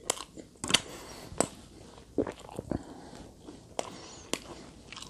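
Close-miked chewing of crusty chicken pizza crust: irregular sharp crunches and mouth clicks, roughly two a second.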